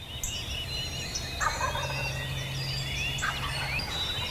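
Wild turkey gobbling twice, about a second and a half in and again past the middle, over many songbirds chirping and trilling. A low steady hum sits underneath through the middle.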